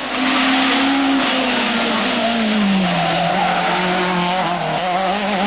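Rally car engine running loud at close range, its pitch dropping about two seconds in and then holding steady, over a rush of tyre and road noise.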